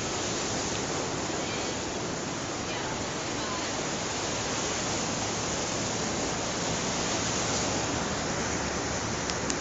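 Steady rushing outdoor noise with no distinct events, even in level, cutting off suddenly at the end.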